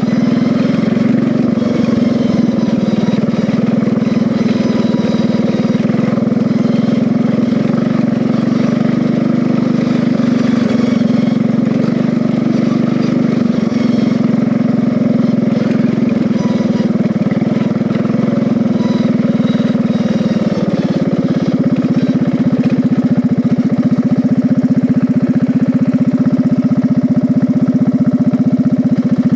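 Riding lawn mower engine running steadily as the mower is driven, its pitch rising a little about two-thirds of the way through.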